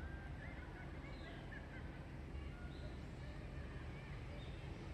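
Birds calling: a quick run of short, twisting chirps in the first second or so, then scattered short calls, over a steady low background rumble.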